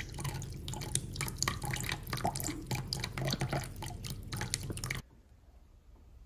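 Water dripping in many irregular, closely spaced drops over a low steady hum; the sound cuts off suddenly about five seconds in.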